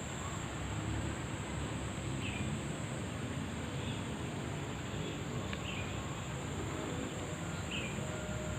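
Outdoor evening ambience: a steady, high insect drone, with a few short chirps a few seconds apart over a low background rumble.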